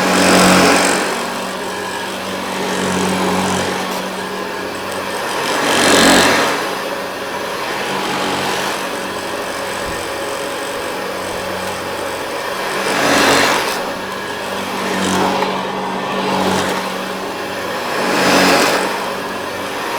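1968 Hoover Convertible Model 711 upright vacuum cleaner running with a steady motor hum. The sound swells louder and brighter every few seconds, five or six times in all.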